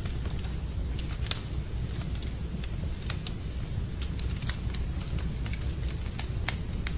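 Wood fire burning in a fireplace, crackling with frequent irregular sharp pops and snaps over a steady low rumble of the flames.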